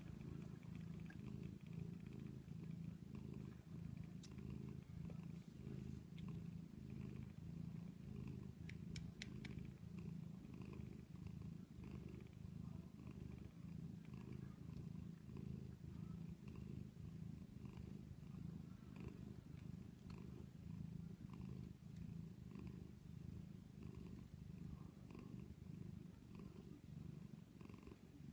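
Domestic cat purring softly and steadily: a tabby mother cat nursing her young kittens.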